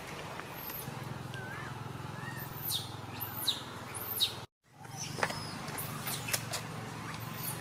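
High-pitched animal chirps, several sharply falling in pitch, over a steady low hum of outdoor ambience. The sound cuts out completely for a moment just after the middle.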